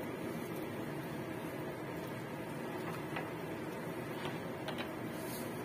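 Steady low hiss of a lidded wok on the stove, bok choy steaming in a little water under a glass lid, with a few faint ticks about three to five seconds in.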